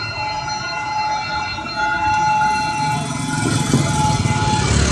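D19E diesel-electric locomotive approaching a level crossing: its engine rumble grows louder from about three seconds in. A steady, high-pitched warning tone sounds throughout.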